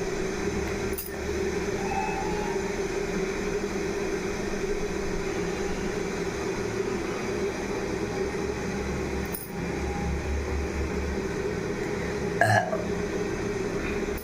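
Steady background hum, broken once near the end by a girl's single short hiccup.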